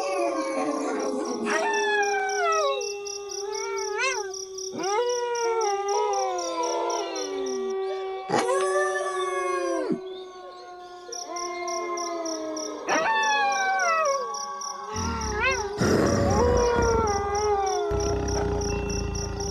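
A pack of wolves howling in chorus: several long howls overlap, many sliding down in pitch, over one voice holding a steady note. About fifteen seconds in, a rough, noisy stretch joins them for a few seconds.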